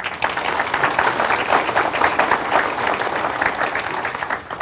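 Audience applauding, a dense patter of many hands clapping that starts abruptly and dies away near the end.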